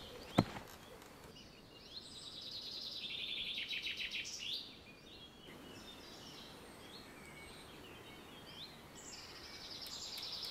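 Wild birds singing in woodland: rapid high trills and chirps, one stretch in the first half and another starting near the end. A single sharp knock comes about half a second in.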